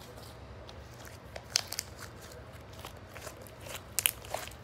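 Clear-glue and borax slime stretched and squeezed by hand, giving scattered sharp crackling pops, loudest about a second and a half in and again around four seconds in. The slime is stiff and tears a little, which she takes for slime close to over-activated.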